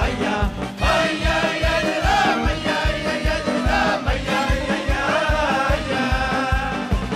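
Hasidic song: men's voices singing together over a fast, steady beat.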